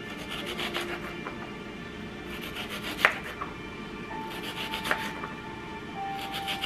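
Kitchen knife slicing shallots on a wooden cutting board, in four short runs of quick strokes, with one louder knock of the blade on the board about three seconds in. Background music plays underneath.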